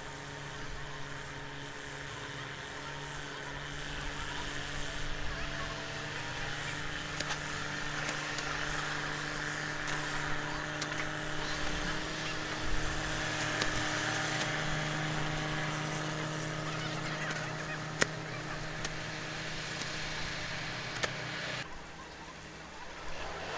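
Farm machinery's diesel engine running at a steady speed with a constant hum. There is one sharp click near the end, and the sound eases slightly just before it ends.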